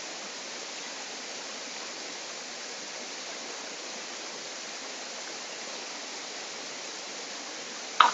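Steady rushing of a stream cascading over rocks. Near the end comes one sharp clink of a metal spoon against the steel cooking pot.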